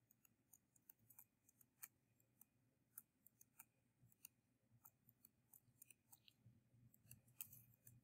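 Near silence broken by faint, irregular ticks of a stylus tip tapping on a tablet screen while writing by hand.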